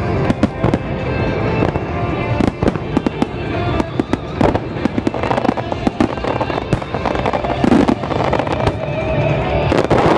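A starmine firework barrage: aerial shells fired and bursting in rapid, dense succession with many sharp bangs, over show music synchronised to the display.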